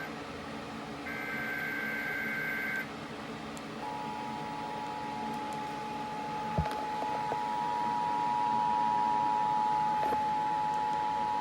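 Emergency Alert System signal: the end of the SAME digital header, a buzzy warble on two high pitches sent in short bursts, then a pause and the steady two-note EAS attention tone held for about eight seconds.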